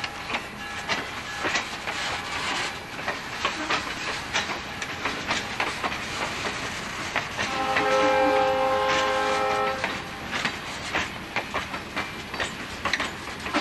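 Freight train rolling by, wheels clicking over the rail joints, with the Alco S4 switcher sounding one horn blast of about two and a half seconds, starting about seven and a half seconds in.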